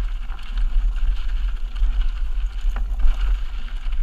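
Wind rumbling on the camera microphone as a mountain bike rolls down a loose, rocky singletrack, with tyre crunch and the bike rattling over the stones, and one sharp clack near the end.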